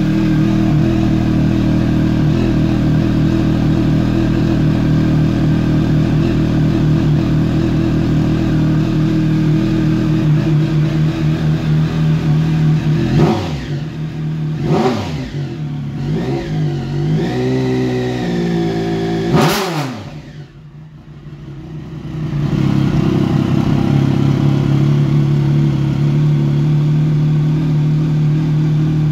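Triumph Speed Triple's three-cylinder engine idling steadily through an aftermarket carbon-fibre end can. About halfway through the throttle is blipped several times, the revs rising and falling, the last blip the sharpest; the sound dips for a couple of seconds, then settles back to a steady idle.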